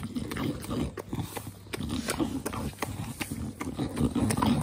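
English bulldogs breathing noisily and chewing roasted sweet potato taken from a hand, with wet mouth smacks. The sound comes in irregular bursts and is loudest about four seconds in.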